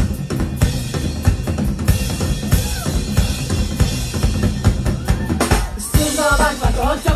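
Live band playing loudly, led by a drum kit pounding out a fast, busy beat of kick drum, snare and rimshots over a low bass line. Near the end a wavering pitched melodic line comes in over the drums.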